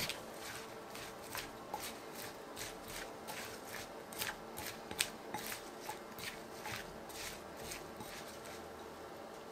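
Irregular light taps and clicks of kitchen utensil work, about two or three a second, stopping about a second before the end.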